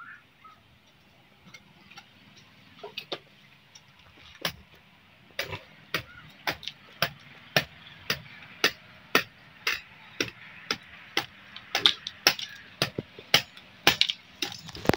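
Repeated hammer blows, a few scattered knocks at first, then from about four seconds in a steady run of about two blows a second.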